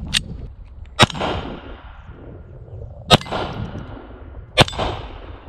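Three shots from a 1911-pattern pistol chambered in .22 Long Rifle, about one, three and four and a half seconds in, each trailing off in a short echo.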